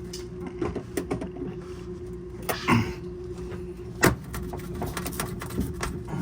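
Scattered clicks and knocks of tools and fittings being handled under a sink while a hose clamp is worked loose, the sharpest knock about four seconds in, over a steady hum.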